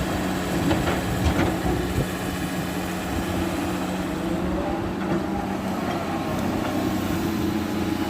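Heavy diesel earthmoving machinery running steadily, a constant engine hum with a few faint clicks and clanks.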